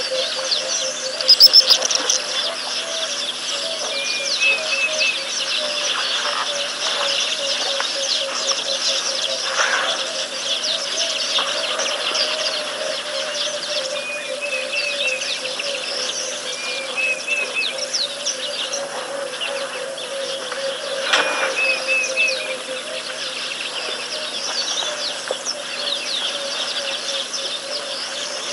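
Savanna ambience: a chorus of wild bird calls and chirps, with a short three-note call repeating several times, over a steady pulsing trill. A brief cluster of sharp clicks comes about a second and a half in.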